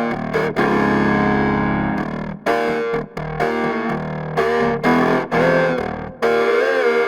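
Expressive E Osmose 49 synthesizer played as a melodic lead: a phrase of notes broken by short gaps, with one note held for over a second near the start and notes wavering in pitch near the end.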